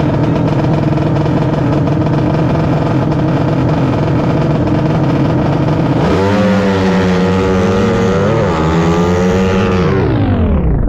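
Drag-racing motorcycle engine at high revs, a steady loud note for about six seconds, then wavering in pitch and falling off sharply near the end.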